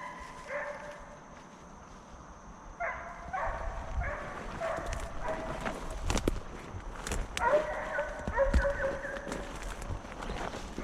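Deer hounds baying in drawn-out calls while running a deer. The calls come in several bursts, with a few sharp knocks in the middle.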